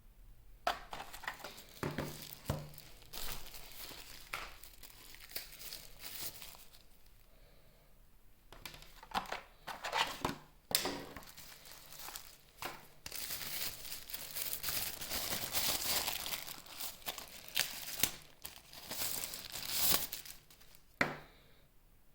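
Phone packaging being unwrapped by hand: crinkling and tearing with scattered clicks and knocks, going on in spells with a short pause partway through.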